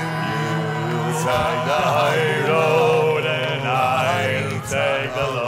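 Live Celtic folk music: several men singing together over a steady low drone.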